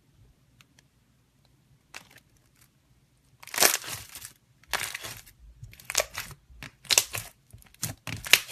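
Slime being squeezed and pressed by hand, giving about five loud crunchy bursts roughly a second apart, starting about three and a half seconds in.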